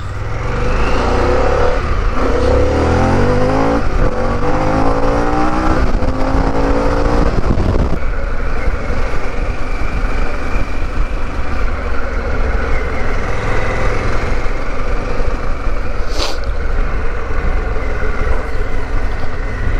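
Harley-Davidson Pan America's 1250 cc V-twin accelerating through several gear changes, its pitch climbing and dropping back in steps over the first eight seconds, then running steadily at a cruise. A short sharp click comes about sixteen seconds in.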